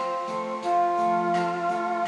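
Yamaha Wind Jamm'r electronic saxophone playing a slow pop melody over a backing track of sustained keyboard chords, with a long held note beginning under a second in and a light, even beat behind it.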